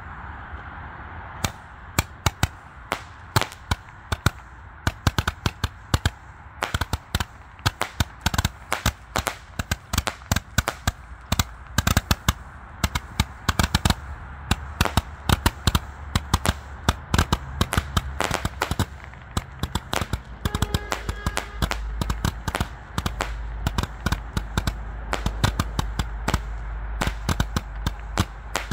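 A 198-shot Gatling roman candle firing rapidly: sharp shots several a second over a steady hiss.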